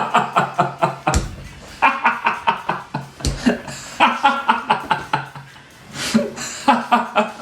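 A person laughing in several runs of short, rapid chuckles, about four a second.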